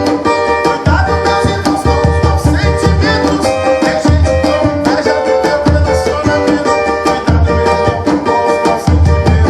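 Cavaquinho strummed in a fast Pentecostal 'corinho de fogo' rhythm over a tantan hand drum, with deep drum strokes about every second and a half.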